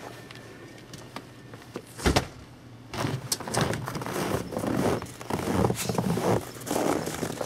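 A thump about two seconds in, then footsteps crunching in snow, about two steps a second.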